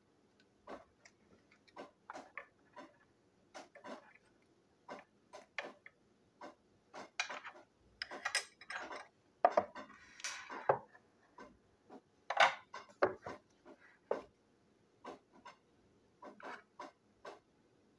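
Small plastic and metal toy-train parts and a small electric motor handled on a tabletop: scattered light clicks and taps, with a louder clatter between about 7 and 13 seconds in, as the motor and tools are put down and picked up.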